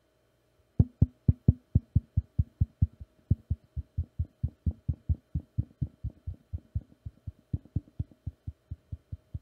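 Fingertips tapping on the grilles of two handheld dynamic microphones, heard through the mics as an even run of soft thumps, about four or five a second, starting just under a second in. The taps push the mics over the audio threshold that drives the mixer's automatic camera switching.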